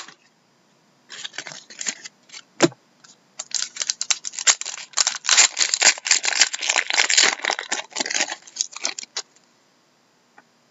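A foil trading-card pack torn open by hand and its wrapper crinkled: dense, irregular crackling that starts about a second in, is loudest in the middle and stops about a second and a half before the end, with a sharp snap at the start and another about two and a half seconds in.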